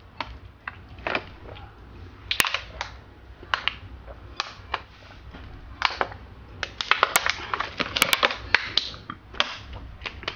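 A person gulping salt water from a thin plastic water bottle: a run of short swallowing clicks and crackles of the plastic, coming thicker from about six seconds in.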